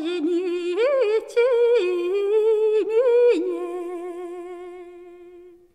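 A woman singing a Russian folk song unaccompanied, one voice sliding and ornamenting between notes; about three and a half seconds in she holds a long wavering note that fades away.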